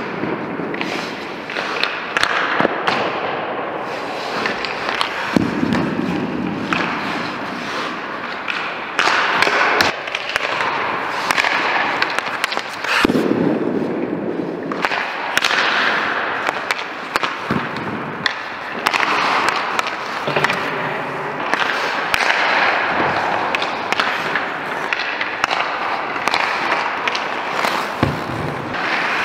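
Hockey goalie skates and pads scraping and sliding on the ice in repeated spells, with sharp cracks and knocks of pucks and sticks striking throughout.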